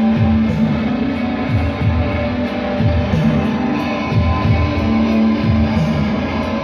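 Live rock music from an amplified electric guitar: sustained notes over a low figure that repeats about once a second.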